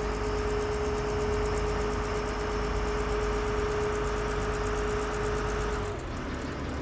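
Tour boat's engine running steadily, with a droning note that drops to a lower note about six seconds in.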